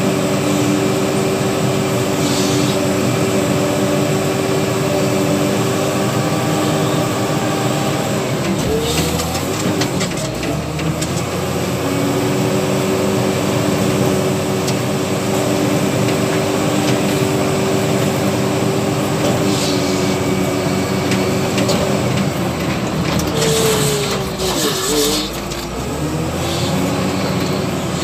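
W130 wheel loader's diesel engine running steadily under working load, heard from the cab as the bucket spreads gravel on a dirt road. The engine speed dips and recovers briefly twice, about nine seconds in and again near twenty-four seconds, each time with a short clatter.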